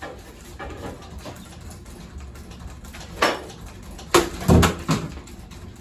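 Hugger ceiling fan being smashed: a loud bang past the middle, then three or four more bangs and knocks in quick succession, over a low steady hum.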